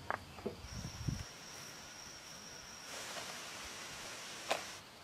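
A few hard knocks of river stones being set down against each other in the first second, then a steady high-pitched insect drone, with a rustle in the last couple of seconds.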